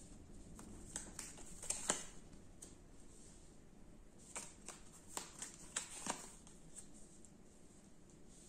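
Tarot cards being shuffled and handled: soft, irregular flicks and clicks of card stock, in two loose clusters.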